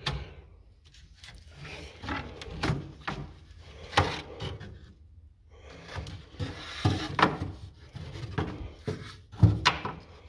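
Wooden slatted rack being handled and slid into the slots of a wooden smoker cabinet: irregular wooden knocks and scrapes, the loudest knocks about four seconds in and near the end.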